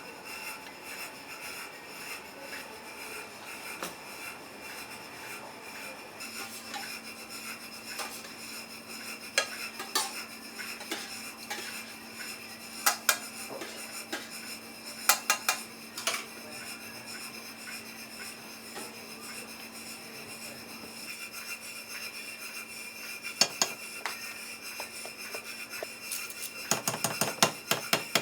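Kitchen work in a ramen shop: scattered clinks and knocks of bowls and metal utensils over a steady hum of kitchen equipment, with a quick run of clatter near the end.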